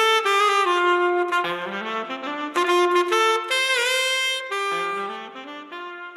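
Solo saxophone playing a jazz-style melody, a single line of held notes with vibrato and short slides between them, growing quieter near the end.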